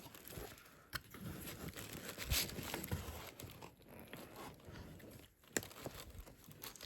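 Paper and cardboard packaging handled as a book box is unpacked: irregular rustling and crinkling, with a few sharp taps along the way.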